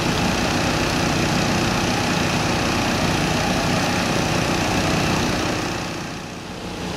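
Small gasoline engine of a portable water pump running steadily at constant speed while it pumps floodwater out; the sound drops briefly near the end, then comes back.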